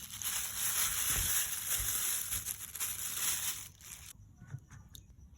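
Steady hissing, crackling noise that cuts off suddenly about four seconds in, followed by a few faint clicks and taps.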